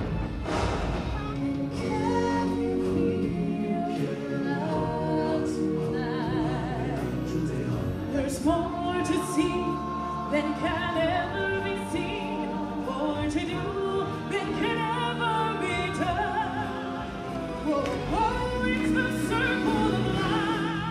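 Live stage-show singing: several voices holding long notes with vibrato over orchestral backing music, with a few drum hits in the middle.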